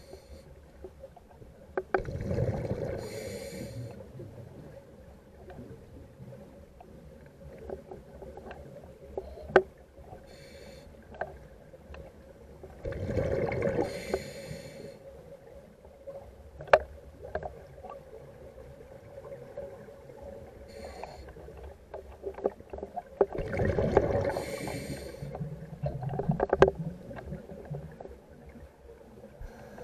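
Water lapping and sloshing in slow swells about every ten seconds, with scattered sharp clicks between the swells.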